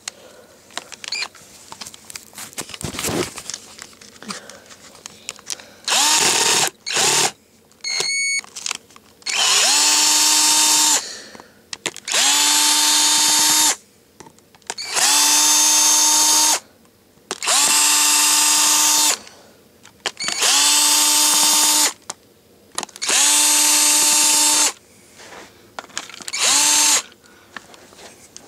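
Cordless drill driving out the Phillips screws of a drill case in repeated short runs. After a couple of brief blips come seven bursts of about a second and a half to two seconds each; each winds up quickly and then holds a steady whine. Faint handling clicks fall between the runs as the bit moves from screw to screw.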